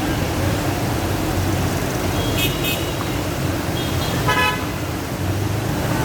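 Vehicle horns honking over a steady rushing noise: two short high toots about two and a half seconds in, then a longer horn blast around four seconds.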